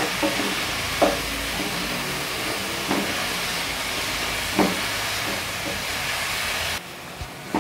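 Grated coconut sizzling with a steady hiss as it cooks in a nonstick pan, stirred with a wooden spatula that knocks against the pan a few times. The hiss drops away suddenly near the end.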